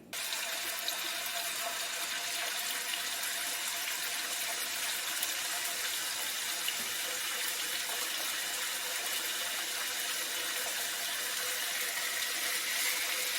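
Chicken pieces sizzling in a hot pan: a steady frying hiss with faint crackles that starts suddenly as the meat goes in.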